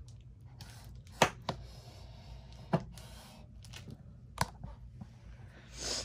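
Handling noise from the camera being moved down for a close-up: a few sharp clicks and knocks, the loudest about a second in, over quiet room noise.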